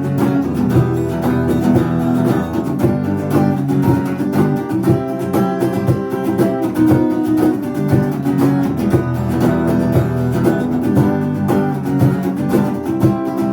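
Acoustic guitar strummed in a steady rhythm, playing chords as an instrumental intro with no singing.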